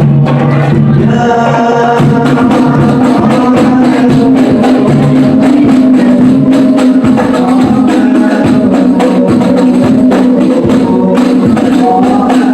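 Hadroh ensemble playing: rebana frame drums and jingles beat a fast, dense rhythm under a sung sholawat melody.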